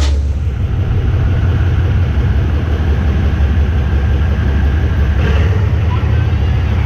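GE diesel-electric locomotive (Thai GEK class) engine running steadily during shunting, a loud, steady low rumble.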